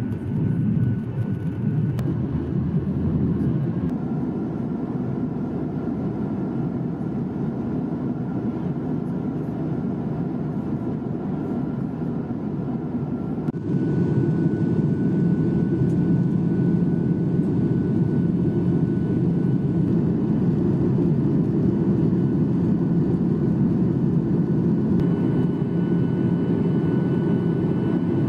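Cabin noise of a Boeing 737-800 in flight, heard over the wing: the steady rumble of its CFM56-7B jet engines and the airflow, with a faint steady whine. About halfway through it cuts abruptly to a slightly louder steady stretch.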